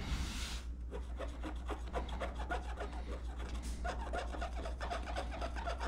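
Quick, repeated scratchy rubbing on an LCD's glass as old polarizer film and adhesive residue, softened with Goo Gone, are scrubbed off.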